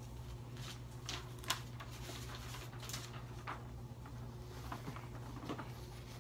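Faint rustling and handling of a sheet of paper, a few short scattered strokes, over a steady low hum.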